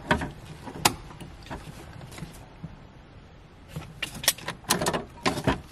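Ignition key being worked in a C4 Corvette's steering column, with the keys jangling: sharp clicks and rattles, a couple in the first second and a quick cluster in the last two seconds. The engine is not running or cranking.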